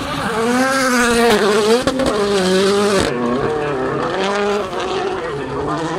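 Ford Fiesta WRC rally car's turbocharged 1.6-litre four-cylinder engine revving hard, its pitch sweeping up and dropping again several times as it shifts and brakes. There are a couple of sharp cracks about two seconds in.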